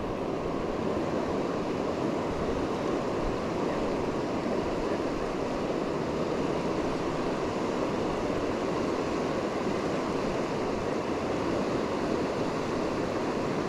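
Steady rushing of a fast river's current, an even wash of water noise that holds without change.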